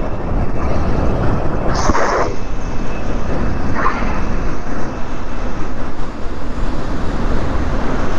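Steady low rumble of wind on the microphone and tyre noise from an electric bike rolling on rain-wet asphalt, with a brief hiss about two seconds in.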